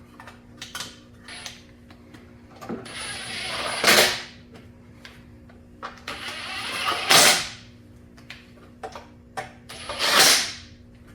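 Cordless power driver run three times in short bursts, each building up and ending in a sharp peak as it drives in fasteners, with a few light knocks of parts being handled in between.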